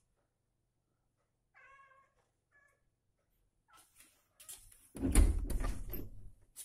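Domestic cat gives a short meow about two seconds in. About five seconds in comes a loud scuffling thump lasting over a second, made by the cat tussling with a plush toy.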